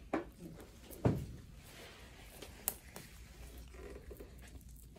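Faint handling noise from a gauze bandage roll being wrapped around a lower leg, with a few short knocks, the loudest about a second in.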